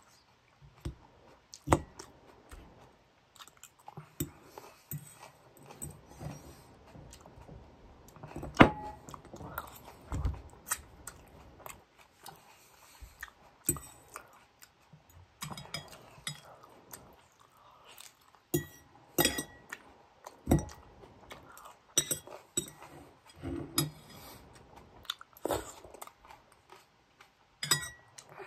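A person chewing and crunching salad, with irregular crisp bites and a few light clinks, as of a utensil against a dish.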